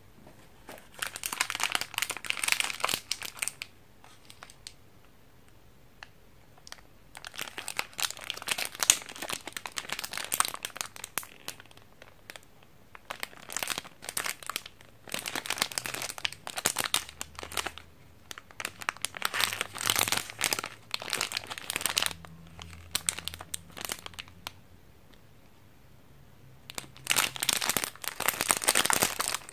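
Plastic wrappers of Japanese Sonomanma chewing-gum stick packs crinkling as they are handled, in about five spells of crackling with quiet gaps between. Near the end the soda pack is worked open.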